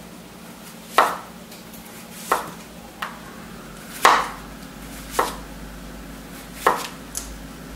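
Knife slicing a yellow summer squash lengthwise into thin slices, each stroke ending in a sharp knock of the blade on the cutting board: about seven knocks at uneven intervals.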